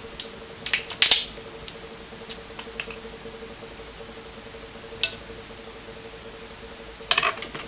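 Mukbang eating sounds: seafood shells cracking and crackling in short bursts, loudest about a second in, with a few more scattered clicks later. A faint steady hum runs underneath.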